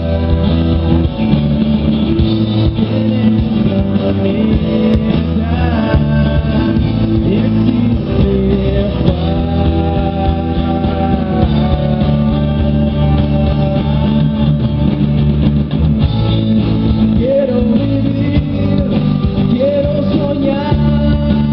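Live rock band playing: guitar and drums with a singer's voice over them.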